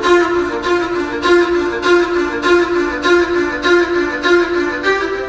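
Background music with a steady, repeating pulse of sustained notes, laid over the footage.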